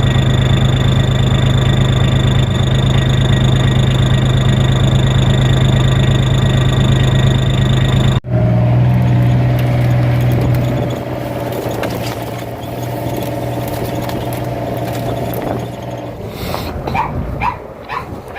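Vehicle engine running steadily, a constant hum that cuts off abruptly about eight seconds in and picks up again, then drops in level a few seconds later. A few short high-pitched sounds come near the end.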